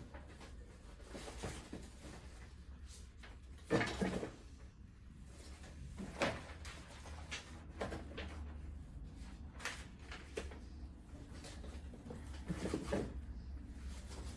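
Handling noises from working inside an opened LCD television: scattered knocks and clicks of parts being moved, the loudest about four seconds in, over a faint steady low hum.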